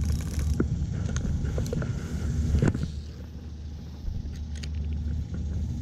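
A spinning rod being cast and its reel worked, over a steady low rumble: one sharp knock about two and a half seconds in, then a few light clicks from the spinning reel a couple of seconds later.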